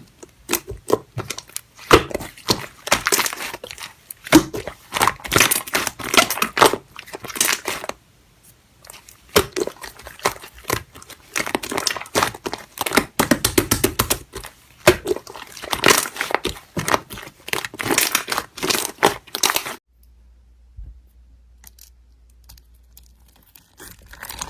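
Slime being squeezed, stretched and pressed, giving a dense run of crackling, popping clicks that stops abruptly about four seconds before the end.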